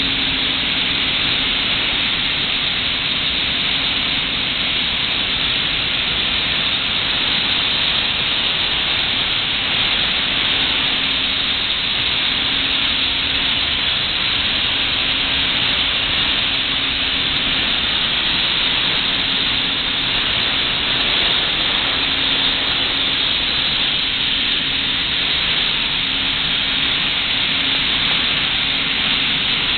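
Steady, loud hissing rush of steam-plant boiler-room machinery, with a faint low hum that comes and goes.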